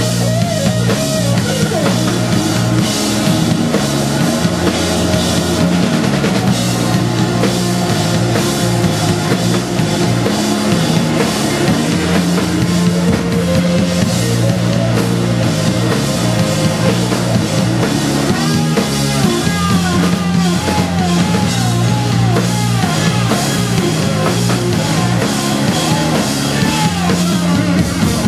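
A live blues-rock band playing loudly: a Stratocaster-style electric guitar leads over a drum kit and bass. About two-thirds of the way through, the guitar plays a run of quickly bent notes.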